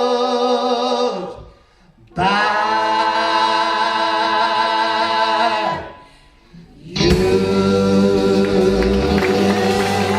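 Singers and band closing a soul song on long held notes in harmony: three sustained chords, each a few seconds long, separated by short breaks. The last one comes in with a loud hit.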